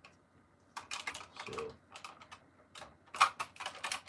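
Irregular hard plastic clicks and knocks from a Buzz Lightyear action figure being handled and turned over, with one sharp, louder click about three seconds in.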